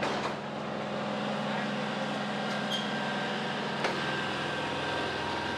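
Aerial ladder fire truck's engine running steadily with a low hum, and a single sharp click a little under four seconds in.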